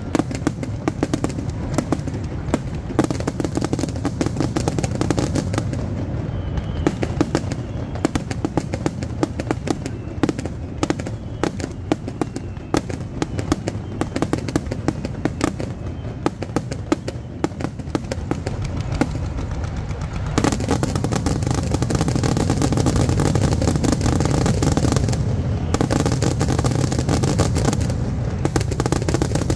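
Finale barrage of aerial fireworks: shells bursting in rapid succession, with many overlapping bangs and crackling. About 20 seconds in, the separate cracks merge into a louder, steadier rumble.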